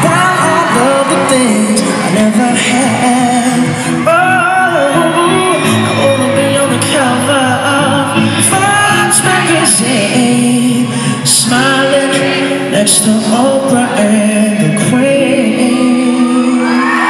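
A live pop band plays while a voice sings, with electric guitar on stage, heard from the stands of a large arena hall with its echo.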